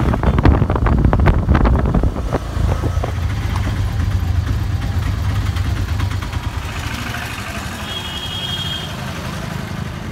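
Auto-rickshaw engine running with a low drone, with knocks and rattles over the first few seconds; the drone eases off after about six seconds.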